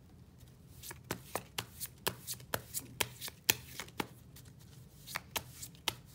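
Tarot deck being shuffled by hand: a run of sharp card snaps and slaps, about three or four a second, starting about a second in.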